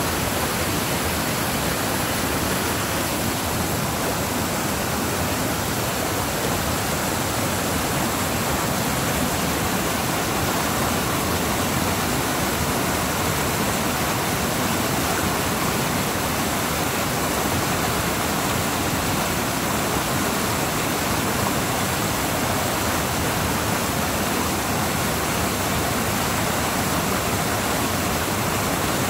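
A small creek swollen by heavy rain, running fast over rapids. The water makes a steady, unbroken rush with no change in level.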